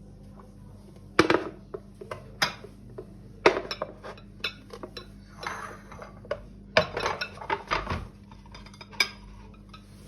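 Dishes and cutlery being handled: a run of sharp, separate clinks and clatters, busiest about two-thirds of the way through.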